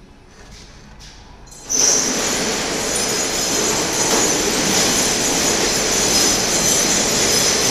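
A loud, steady machine noise, a hiss with a high whine, starts suddenly about two seconds in and keeps running.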